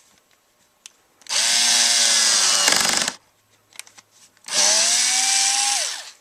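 Makita impact driver driving small screws into wood in two runs of about two seconds and a second and a half, each a motor whine that winds down at the end. The first run ends in a rapid rattle of the impact hammer as the screw seats.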